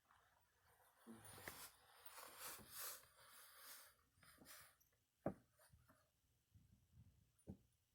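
Near silence, with faint rustling for a few seconds and two soft clicks near the end.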